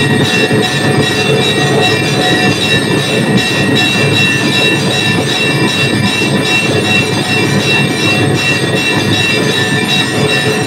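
Hanging brass temple bells rung continuously by hand, the many strikes merging into a loud, steady metallic clanging with ringing overtones that hold throughout.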